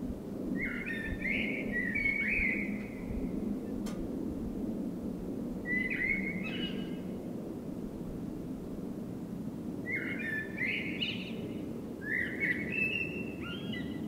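Eurasian blackbird singing four warbling song phrases, each a second or two long with pauses of a few seconds between them, over a steady low background noise.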